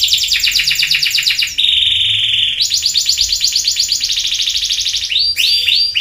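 Domestic canary singing: fast rolling trills, broken about a second and a half in by one held whistle note lasting about a second, then more rolling trills and a few quick slurred notes near the end.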